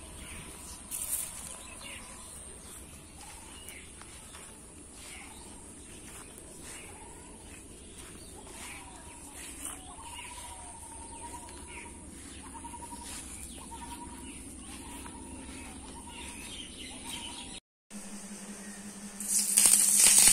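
Quiet rural outdoor ambience with repeated short bird chirps and light rustling. After a brief dropout near the end, a loud sizzling hiss of fish pieces frying in a pan begins.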